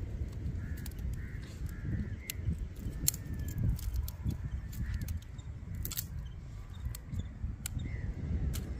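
Crows cawing repeatedly over a steady low rumble, with scattered sharp clicks and snaps.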